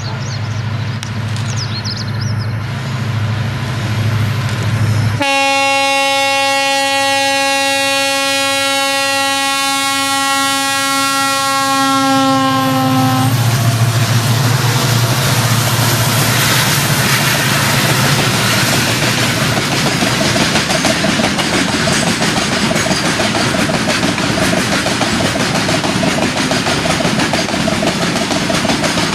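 A pair of Indian Railways diesel freight locomotives, a WDG4D and a WDG4 with EMD two-stroke engines, approaching with engines running, then one long horn blast of about eight seconds starting about five seconds in, its pitch dropping near its end as the locomotives pass. The BCNHL wagons then roll past with a steady rumble of wheels on rail.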